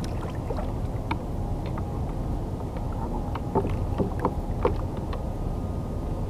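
Steady wind and water rumble on the microphone of a small kayak, with scattered short knocks and clicks as a freshly caught cutlassfish and tackle are handled at the kayak's side. A cluster of these knocks comes in the second half.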